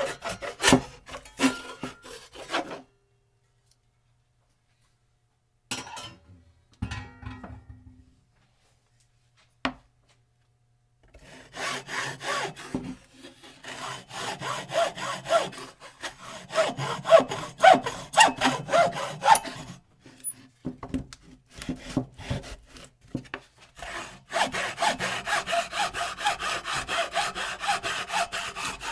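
Hand saw cutting wood in rhythmic back-and-forth strokes. After about three seconds the sawing stops for several seconds, with only a few brief knocks, then starts again and carries on stroke after stroke.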